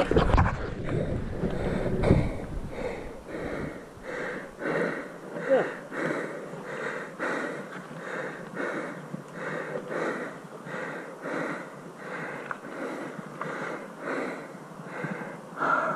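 A person breathing hard in a quick, even rhythm, about one breath sound every three-quarters of a second, with wind buffeting the microphone in the first couple of seconds.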